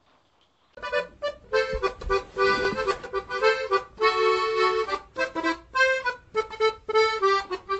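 Bouncy music made of short, clipped notes, starting about a second in after a brief near-silent pause.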